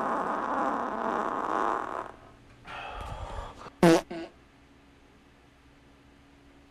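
Flatulence: a long, buzzy fart that stops about two seconds in, then a short, loud fart just before four seconds, followed by a smaller one.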